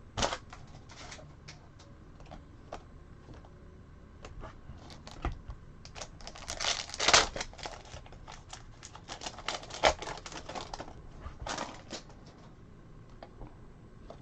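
Trading cards being handled and flipped through by hand, a rapid run of small clicks and slides as cards tap and rub against each other, with louder rustles about seven and eleven seconds in.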